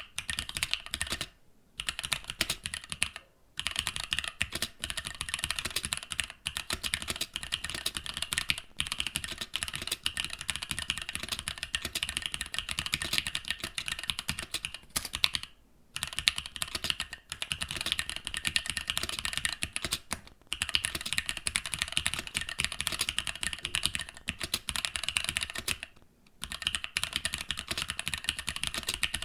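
Fast, continuous typing on a mechanical keyboard fitted with linear switches: dense keystroke clacks with a few short pauses, about a second and a half in, three and a half seconds in, near sixteen seconds and near twenty-six seconds.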